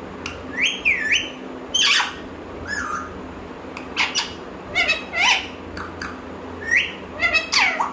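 Pet parrot calling: a string of short squawks, about one a second, each sliding up or down in pitch.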